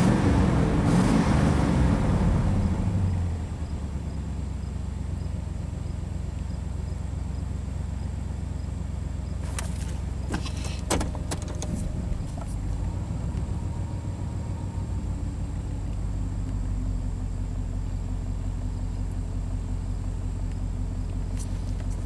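Chevy Silverado 5.7-litre V8 heard from inside the cab, running fast at first, then dropping about three seconds in to a steady idle that slowly settles lower. The idle runs high because air is drawn from the crankcase through a leaking intake manifold gasket, acting like an idle air control valve. A few light clicks about halfway through.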